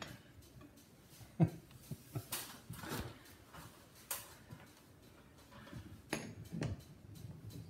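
A wrench clicking and knocking against the bolts and steel track of a barn-door rail while they are tightened: about half a dozen short metallic clicks and taps, the sharpest about a second and a half in.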